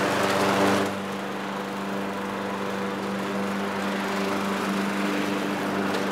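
Petrol walk-behind lawn mower engine running steadily, a little quieter from about a second in.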